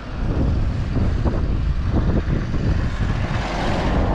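Wind buffeting the camera microphone: an uneven low rumble and flutter, with a hissing gust that swells near the end.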